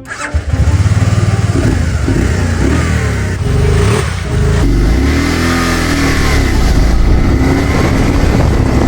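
Bombardier vehicle's engine accelerating on a test ride, its pitch rising and falling several times as it speeds up and shifts. It is running after a failed spark plug that had caused a cylinder misfire was replaced.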